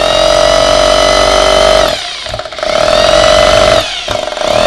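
Corded 100-volt, 500-watt hammer drill running in hammer (concrete-drilling) mode. The motor's steady whine spins down about two seconds in, revs back up, then drops again near the end before picking up once more.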